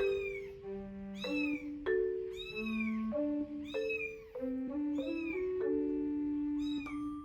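Baby kitten meowing over and over, about six loud rising-and-falling cries roughly a second apart: separation crying for its absent caretaker. A gentle melody of sustained mallet-like notes plays underneath.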